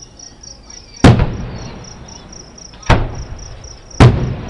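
Distant aerial firework shells bursting: three sharp booms, about a second in, near three seconds and just before the end, each trailing off in a rumbling echo. Under them crickets chirp steadily, about four chirps a second.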